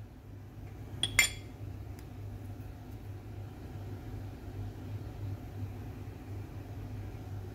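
A short metallic clink, two quick knocks together about a second in, from espresso tools being handled beside the portafilter, over a steady low hum.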